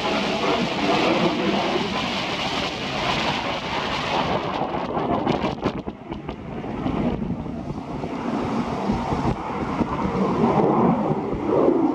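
Rushing jet noise from the Blue Impulse's Kawasaki T-4 jet trainers in flight, mixed with strong wind buffeting the microphone. It dips briefly about six seconds in, then swells again toward the end.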